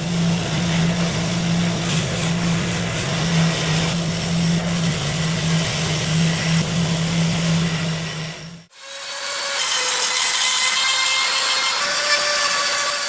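A power tool running steadily against the work, a motor hum under a rough grinding noise. About three-quarters of the way through it cuts off abruptly, and a different hissing tool sound with faint steady tones takes over.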